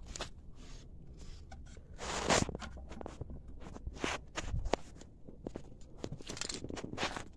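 Footsteps on concrete and grit with clothing rustling, uneven and irregular, with a louder rustle about two seconds in.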